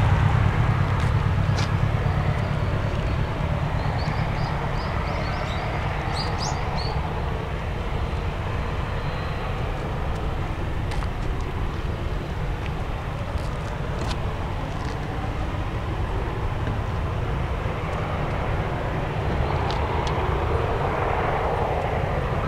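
Boeing 767-300 airliner rolling out on the runway just after touchdown, its jet engines giving a low rumble that fades over the first several seconds as it slows and moves away, then holds steady. A few short high chirps sound about four to seven seconds in.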